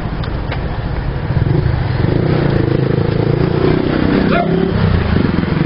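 Honda CG 125 Fan's single-cylinder four-stroke engine running as the motorcycle rides over cobblestones, growing louder about a second and a half in as it pulls away.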